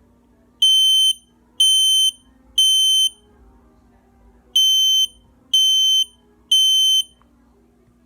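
Ionization smoke alarm (model I9040CA) sounding its test alarm. A loud, high-pitched beep comes in the temporal-three (code 3) pattern: three half-second beeps, a pause, then three more.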